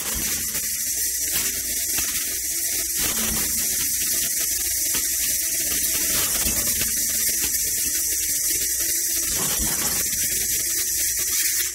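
Nitrogen hissing steadily out of a gas lift valve's dome while a punch is held on the valve, bleeding the charge down to lower its test rack opening pressure. The hiss cuts off abruptly at the end.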